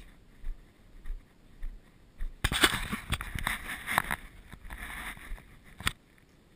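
Footsteps through grass, about two a second, then a few seconds of louder rustling and clicking close to the microphone that stops suddenly.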